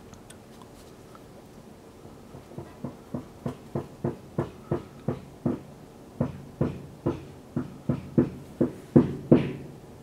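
A run of short, regular knocks, about three a second, starting a couple of seconds in, growing louder, and stopping shortly before the end.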